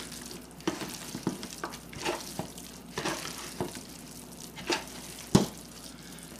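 Bare hands kneading and squishing raw ground bison mixed with egg, breadcrumbs and chopped onion in a plastic bowl: irregular wet squishes several times a second, with one sharper tap about five seconds in.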